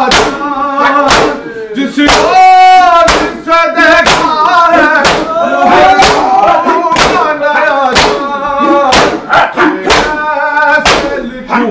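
Men singing an Urdu noha, a Shia lament, with a lead voice holding long wavering notes. A steady rhythm of thuds from mourners beating their chests in matam runs under the singing.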